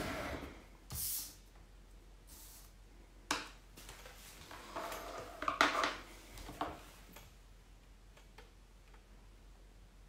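Handling noise close to the microphone: a few short rustles, taps and scrapes in the first seven seconds, after a brief fading tone at the very start, then quiet room tone.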